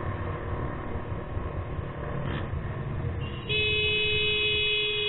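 Wind and road rumble on a moving motorcycle, then a vehicle horn sounds one steady blast of about two seconds, starting about three and a half seconds in.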